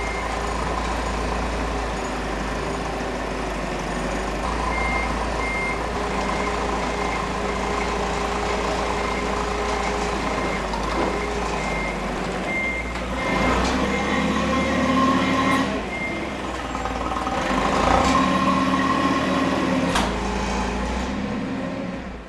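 Forklift running, its reversing alarm sounding a steady series of high beeps through the first half. In the second half the machine works louder in two spells, with a sharp knock near the end, and the sound fades out.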